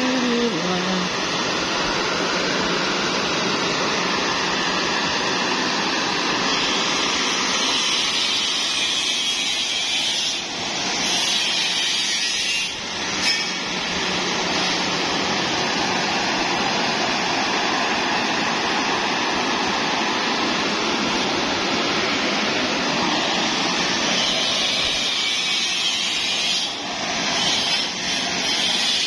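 High-pressure gas wok burner and three ring burners of a commercial stainless-steel range burning at full flame: a steady, loud roar of gas, dipping briefly a few times.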